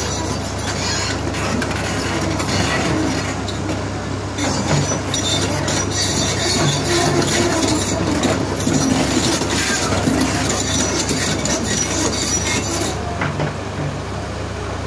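Caterpillar tracked excavator working close by: the steady low drone of its diesel engine under loud metallic clanking and squealing from its steel tracks and moving arm, which dies away about thirteen seconds in.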